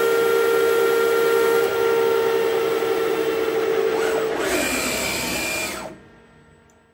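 CNC lathe spindle spinning an aluminium workpiece, with a steady machine whine. About four and a half seconds in, the pitch falls as the spindle slows, a hiss follows, and the sound drops away abruptly about six seconds in.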